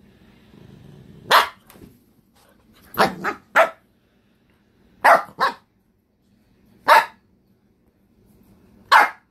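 A small terrier-type dog barking in short sharp barks, about eight in all, some in quick groups of two or three, with low growling between them: play barks from a dog that wants to play.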